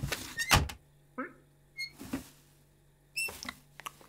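Cartoon foley of a cat shuffling about inside a box: a few thumps and knocks, with short high squeaks between them.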